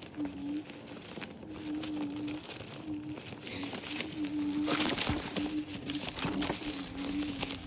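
Birds giving low, repeated cooing calls, each held for about half a second with short breaks between, and a stretch of rustling and scratching about halfway through.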